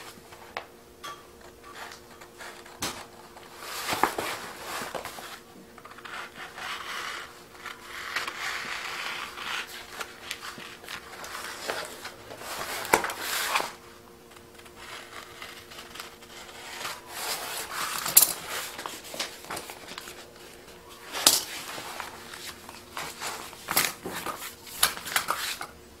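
Scissors cutting through self-adhesive vinyl sheet on its paper backing. The sheet rustles and crinkles as it is handled, with several sharp clicks and snaps. A faint steady hum runs underneath.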